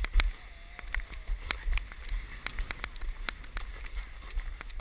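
Irregular sharp clicks and crunches of snowboard gear moving over packed snow, with a low wind rumble on the camera microphone.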